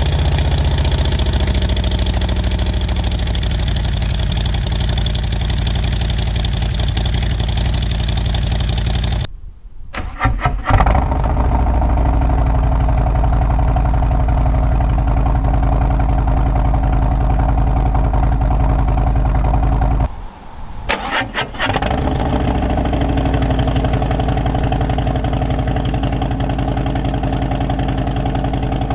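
Harley-Davidson Milwaukee-Eight V-twin, Stage 2 with an SE8-447 cam, cold-started through aftermarket slip-on mufflers and idling. Its speed settles from a fast cold idle over the first couple of seconds. The running breaks off about a third of the way in and again about two thirds in, each time followed by a brief starter crank and the engine catching again.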